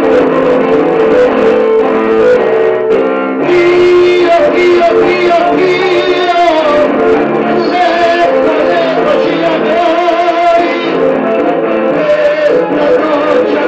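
A man singing into a microphone over guitar accompaniment. The guitar plays alone at first, and the voice comes in about three and a half seconds in.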